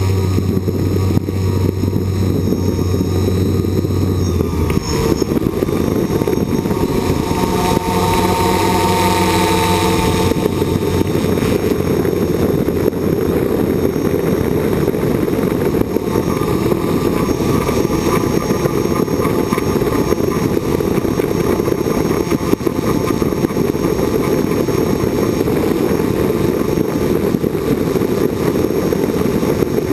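Multirotor drone's electric motors and propellers buzzing loudly and continuously, as picked up by the camera on board. The pitch shifts during roughly the first ten seconds, then holds steady.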